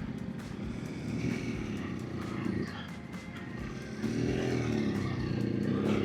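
Adventure motorcycle engine running on a rocky trail climb, its pitch rising and falling as the throttle is worked, picking up in revs about four seconds in.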